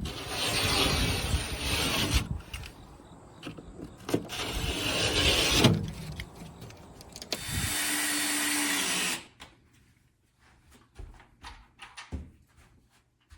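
A handheld power tool runs in three bursts of a couple of seconds each and cuts off sharply after the third, during drywall work. Light knocks and clicks follow.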